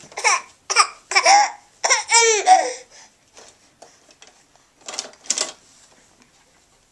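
Baby laughing in short breathy bursts, rising into a long high-pitched squeal about two seconds in, with one more short burst of laughter about five seconds in.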